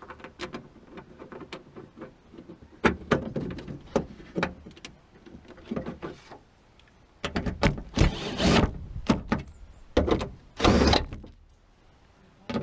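Metal bracket and door parts being handled and fitted inside a car door: a string of clicks, taps and knocks, with two longer scraping rattles in the second half.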